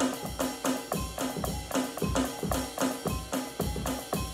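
Drum kit played with sticks in a fast, steady groove: several strokes a second, with low drum thumps repeating underneath.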